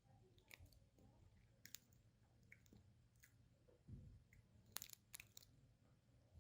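Faint chewing of a Jaffa Cakes bar, chocolate-coated sponge with an orange jelly layer: soft mouth sounds with scattered small clicks.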